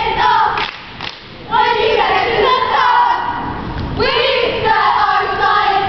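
A cheerleading squad of girls yelling a cheer in unison, in phrases with a short break about a second in, over dull thuds from feet and stunts on the mat.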